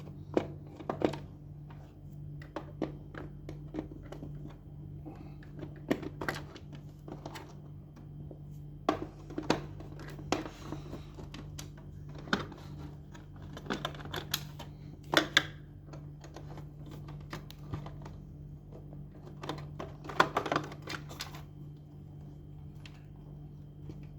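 Irregular clicks and knocks from an NCR ATM banknote cassette being handled and worked on by hand as it is taken apart, some in quick clusters, over a steady low hum.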